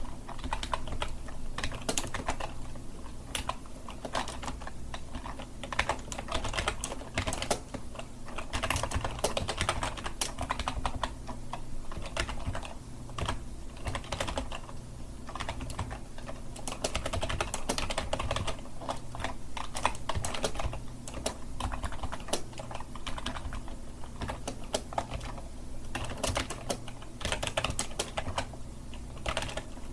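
Typing on a computer keyboard: rapid, irregular key clicks in quick runs with short pauses between them, over a low steady hum.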